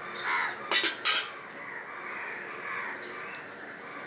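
Stainless steel plates and bowl clinking against each other, with two sharp clinks about a second in.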